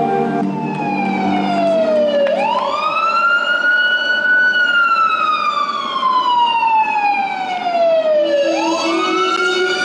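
A wailing siren: its pitch sinks, climbs quickly about two seconds in, slides slowly back down over about four seconds, and climbs again near the end, over a steady hiss.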